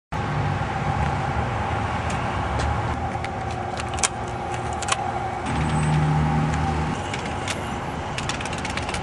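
Car engine idling steadily, with scattered sharp clicks and taps over it.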